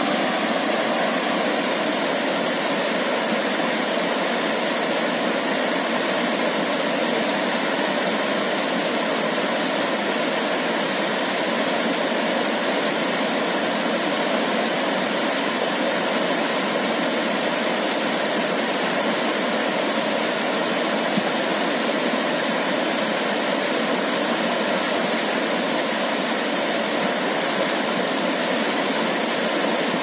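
Shallow rocky stream rushing and splashing over boulders in small cascades: a steady, even rush of water.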